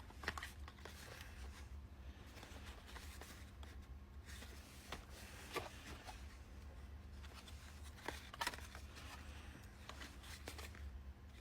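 Quiet room tone with a steady low hum, broken by a few short scattered clicks and rustles of something being handled.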